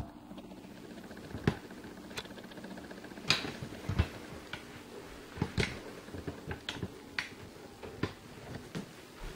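Scattered light clicks and taps at irregular intervals, about ten in all, over a faint low steady hum.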